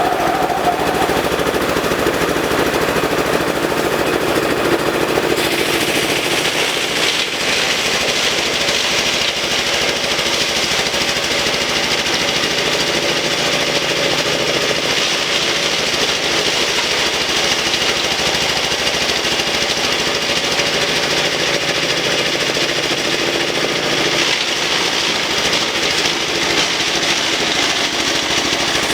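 Compost shredder machine running and chopping elephant grass, a loud, steady rapid rattling clatter. It turns brighter and harsher about five seconds in and eases back a little near the end.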